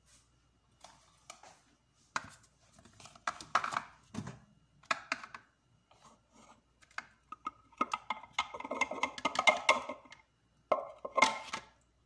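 Plastic clicks, knocks and rubbing from a food processor's bowl being handled and lifted off its base, with a busier stretch of clatter and scraping about eight seconds in.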